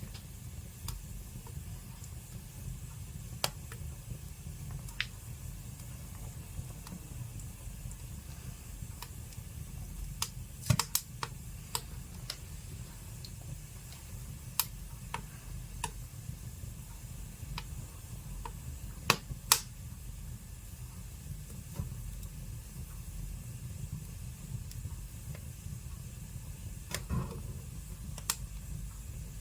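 Wood fire burning in a fireplace: a steady low rumble of the flames with irregular sharp crackles and pops, a few of them louder, about a third of the way in and again about two-thirds of the way in.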